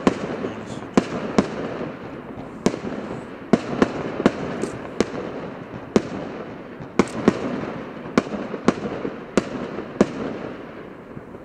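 Bluenight 2-minute firework compound firing a rapid, irregular string of aerial shots, with sharp bangs coming about one or two a second over a steady hiss. It dies down near the end.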